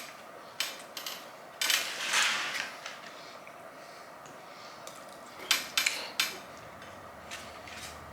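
Scattered clicks and light clatters of utensils and food packaging being handled at a meal, with a short rustle about two seconds in and a quick cluster of clicks a little past five seconds.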